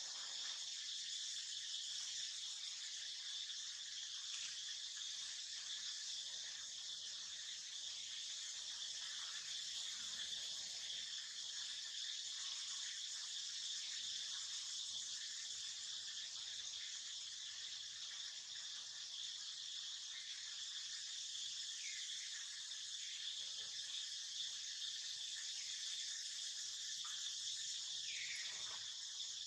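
Steady, continuous chorus of insects shrilling in a high pitch, with a couple of faint short chirping calls in the second half.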